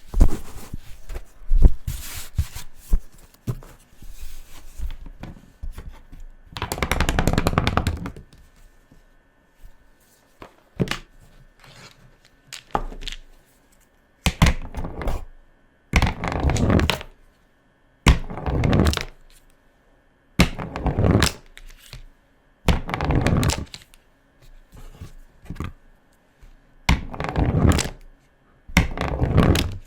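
Felt-tip markers scratching across paper while coloring. The first seconds bring short clicks and knocks, then come repeated scribbling strokes of about a second each, roughly one every two seconds.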